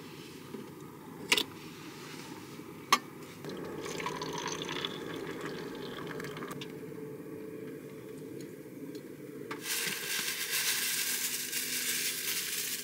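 Two sharp clicks, then hot water poured from a kettle into a stainless steel cup, a steady running pour. In the last three seconds a loud steady hiss takes over.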